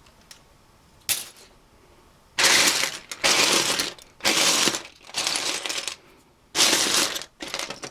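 Loose plastic Lego bricks and parts clattering as a hand rummages and sifts through a pile of them: a single click about a second in, then a run of rattling bursts from about two and a half seconds in.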